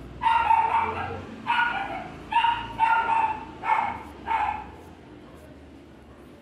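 A dog barking, six high-pitched barks in quick succession.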